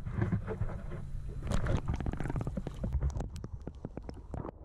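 Low rumbling noise, which about three seconds in gives way to muffled underwater sound with many sharp clicks.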